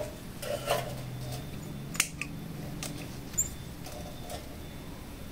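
Scattered short clicks and light snaps from hands working among a bonsai tree's wired branches, the sharpest about two seconds in, over a faint steady low hum.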